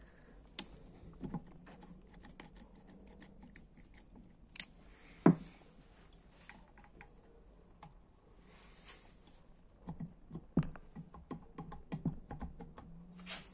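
Irregular light clicks and taps of small metal engine parts and hand tools being handled, with a louder knock about five seconds in and a cluster of knocks near the end.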